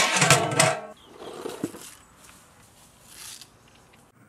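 Aluminium lid set on a large aluminium cooking pot: a sharp metal clang that rings on for about a second, followed by faint, soft handling noises.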